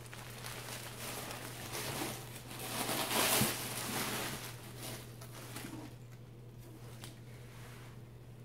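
Rustling and crinkling as a bundle of folded clothing is unwrapped and handled, loudest about three seconds in and quieter after about six seconds, over a steady low electrical hum.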